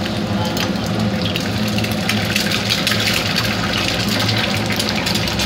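Two eggs frying in hot oil in a nonstick pan: a steady sizzle with crackling spatter that grows busier about two seconds in, over a steady low hum.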